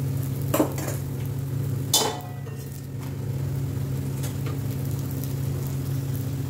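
Two sharp metal clinks, about half a second and two seconds in, the second ringing briefly, as a steel utensil knocks against the ghee bowl or pan while parathas cook on the tawas. A steady low hum runs underneath.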